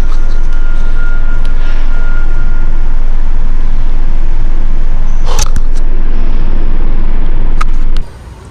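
Skateboard wheels rolling on a concrete parking-garage floor: a loud, steady rumble that overloads the microphone. Sharp knocks come about five and a half seconds in and again near the end, and the rumble cuts off suddenly just before the end.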